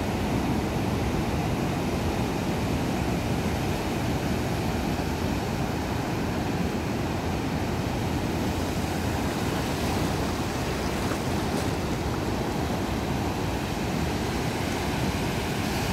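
Ocean surf breaking on a sandy beach: a steady, continuous rush of waves.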